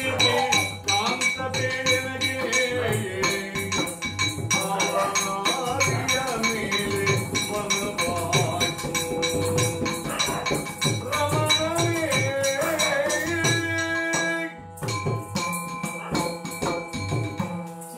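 Live Yakshagana music: a singer's wavering melodic line over a steady drone, driven by dense maddale drum strokes with the jingle of the dancers' ankle bells. The sound drops out briefly about three-quarters of the way through.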